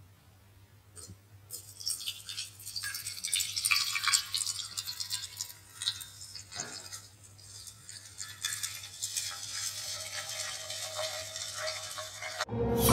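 Freshly boiled water being poured through a mesh infuser into a glass teapot, a splashing hiss that swells and fades. Music starts right at the end.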